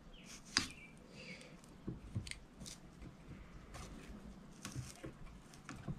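Fly-tying thread being wound by hand around foam on a hook: faint rustling with small irregular ticks as the thread is pulled tight.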